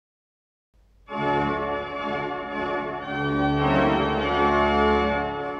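Bätz/Witte pipe organ playing a festive improvisation with loud full chords and a deep pedal bass, starting about a second in. Near the end the bass drops out and the playing gets quieter.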